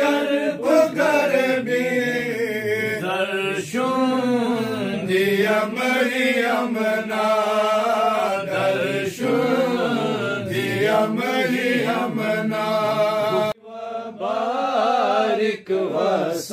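Men's voices chanting a devotional Urdu-Arabic salutation (durood/naat) unaccompanied, in long melodic held lines. The chant breaks off suddenly for a moment about thirteen and a half seconds in, then resumes.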